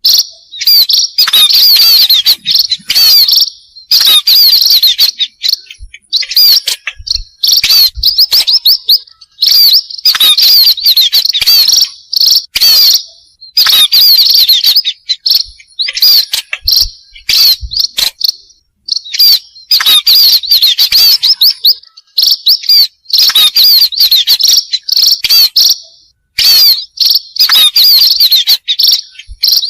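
Recorded munia ('pipit') chirping played as a lure: dense runs of high chirps in loud phrases a couple of seconds long, broken by short gaps, over and over.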